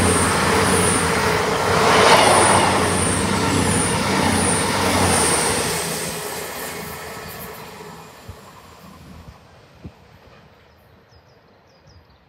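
A CrossCountry Voyager diesel multiple unit passing at speed: underfloor engine hum and a steady whine over the rush of wheels on rail. Loudest in the first couple of seconds, then fading steadily as the train draws away.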